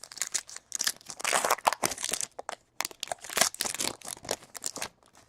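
Plastic trading-card pack wrapper being torn open and crinkled by hand, a dense run of irregular crackles that dies away near the end.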